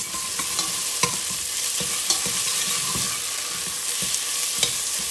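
Chopped onions and tomato paste sizzling in oil in a stainless steel pot, with a metal spoon stirring and scraping against the pot in irregular clinks.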